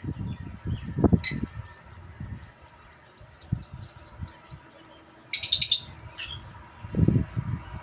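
Pet parrot chirping in a run of quick small tweets, with a few sharp calls and one loud squawk about five seconds in. Low bumps come near the start and near the end.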